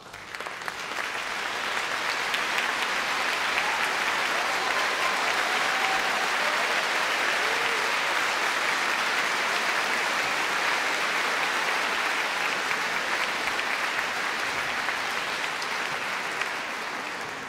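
Concert-hall audience applauding, swelling in over the first second or two, holding steady, then easing off near the end.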